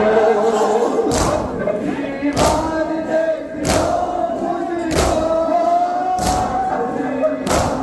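A crowd of mourners beating their chests in unison (matam): six loud slaps evenly spaced about a second and a quarter apart, under a sung noha chant.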